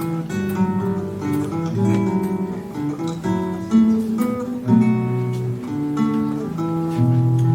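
Classical guitar trio playing: three nylon-string classical guitars plucking a melody and chords over moving bass notes, several notes sounding at once.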